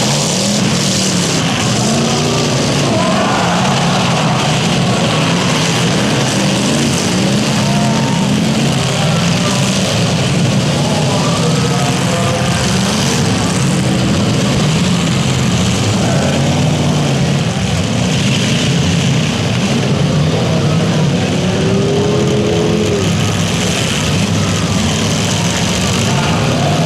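Demolition derby cars' engines running and revving together: a steady, loud, unbroken din whose pitch rises and falls.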